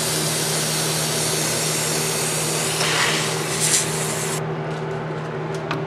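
Aerosol spray can hissing as it is sprayed through a red extension straw into an engine cylinder bore, cutting off about four and a half seconds in.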